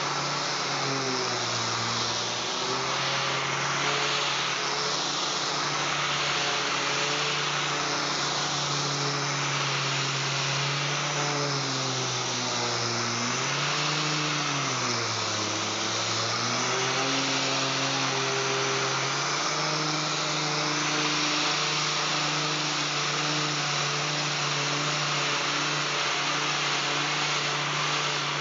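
3M 6-inch random orbital air sander running on a solid surface countertop: a steady airy hiss over a low hum whose pitch dips briefly a few times, about two seconds in and again between about twelve and sixteen seconds.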